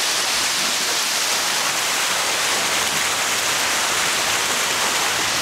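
Pacific Ocean surf churning through a narrow rock chasm: a steady rush of white water.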